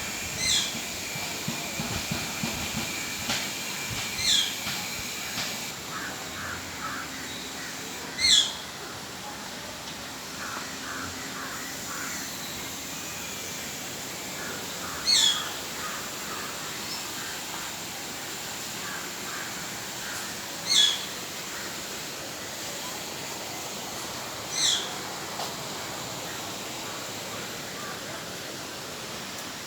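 A parrot giving six short, loud calls spaced several seconds apart. Fainter chirps of smaller birds sound in between, over a steady background hiss.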